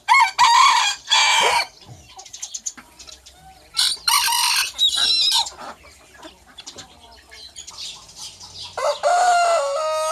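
Roosters crowing: a loud, harsh crow in two parts right at the start, another harsh crow about four seconds in, and near the end a long, clear, steady-pitched crow that is still going at the end.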